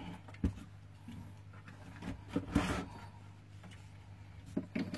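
Light handling noise of small electronics and a charger cable: a few soft knocks and clicks, about half a second in, around two and a half seconds in, and near the end, over a faint steady low hum.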